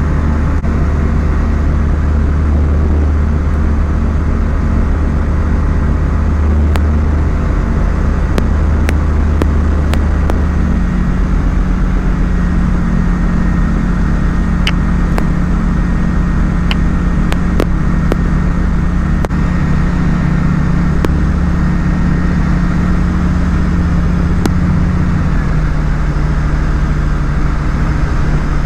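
Light aircraft's piston engine and propeller droning steadily in flight. The engine note shifts about ten seconds in and drops slightly in pitch near the end.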